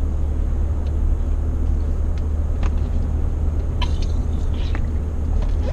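Steady low road and engine drone inside the cabin of a moving Ford truck. A few faint clicks come around four seconds in as the driver drinks from a plastic water bottle.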